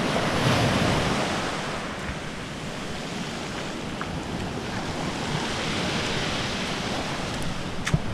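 Sea surf washing and breaking, with wind buffeting the microphone in rough conditions. The wash swells about a second in, and there are a couple of sharp clicks near the end.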